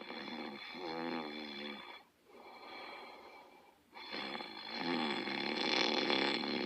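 Snoring during sleep: a snore, a quieter breath after it, then a longer, louder snore starting about four seconds in.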